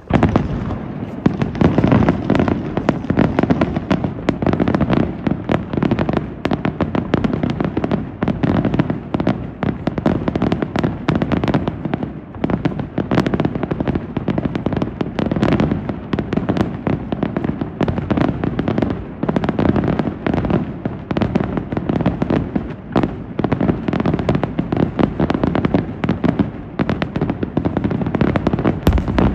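Aerial fireworks display: a dense, continuous barrage of shells bursting many times a second, starting abruptly and never letting up, with a heavy rumbling undertone.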